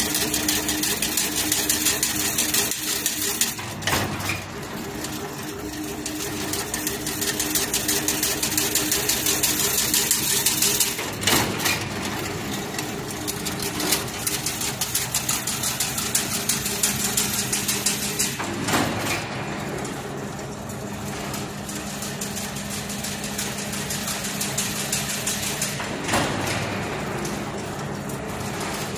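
Automatic chain link fence weaving machine running, with a fast, steady mechanical clatter over a low hum. Louder knocks come at uneven intervals, five times.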